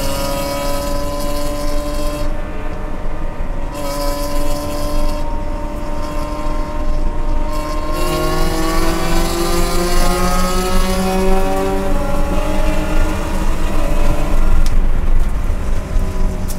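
Race car's engine heard from inside the cockpit under hard acceleration, its pitch climbing steadily in third gear, then dropping about twelve seconds in on the upshift to fourth, over constant road and wind noise.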